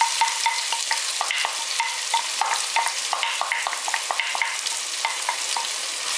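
Freshly added chopped onion and cumin seeds sizzling in hot oil in a metal saucepan. A steady hiss runs under frequent small crackles and clicks, several a second.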